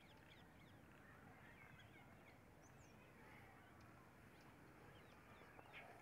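Faint birds calling: scattered short chirps and quick whistled glides over a low outdoor hiss, with a slightly louder call near the end.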